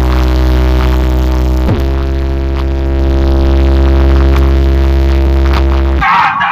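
Electronic music with heavy bass played loud through a car sound system's two 18-inch subwoofers. Long held bass notes slide down into a new note about two seconds in. Near the end the bass drops out for a moment under a short hissy burst.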